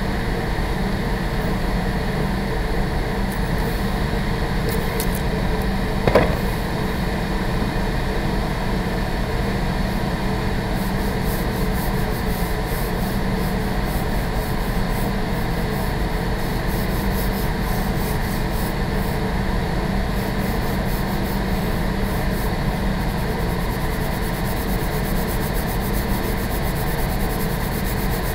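Steady hum of running ventilation, with a coloured pencil scratching across sketchbook paper in repeated short strokes from about eleven seconds in, faster hatching strokes near the end. A single knock about six seconds in.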